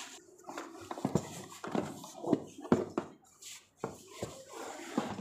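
Irregular knocks, clicks and rustles from a plastic-wrapped infant car seat being handled and unwrapped, about a dozen sharp strikes spread unevenly.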